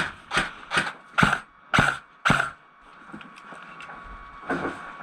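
Regular crunching strokes, about two to three a second, stopping about two and a half seconds in, then only scattered faint ticks and one more crunch near the end.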